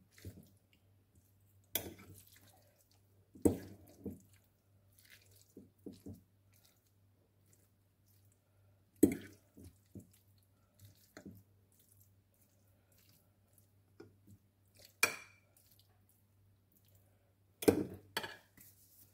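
Metal fork clinking and scraping against a ceramic baking dish as chunks of boiled cauliflower and cheese are stirred together: scattered sharp taps several seconds apart, with quiet stretches between.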